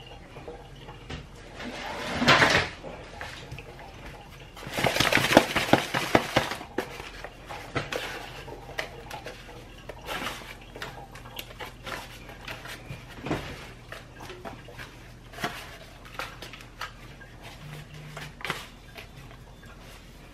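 Crushed Flamin' Hot Cheetos crumbs rustling and a disposable aluminium foil pan crinkling as a gloved hand rolls a cheese-coated corn dog through the coating. The sound comes in irregular bursts with small clicks, loudest in a short burst about two seconds in and a longer stretch from about four to seven seconds in.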